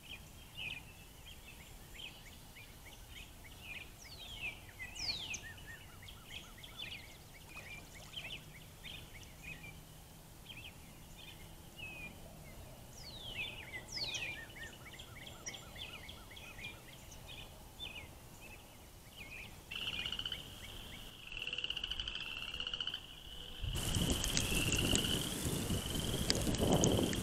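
A chorus of frogs calling, many short trilled calls overlapping, with a falling whistled call twice. Near the end the calling turns into a steadier continuous trill and a loud rushing noise comes in.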